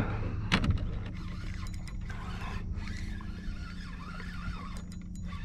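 Fishing reel being cranked, its gears whirring with a few sharp clicks about half a second in.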